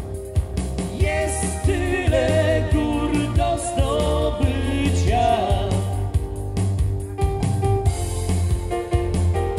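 Wedding dance-band music: a steady beat and bass under a wavering lead melody, which is strongest in the first half.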